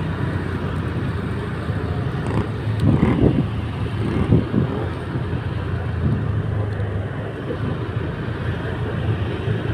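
Motorcycle being ridden slowly through traffic: a steady low engine hum under road and traffic noise, with two louder swells about three and four and a half seconds in.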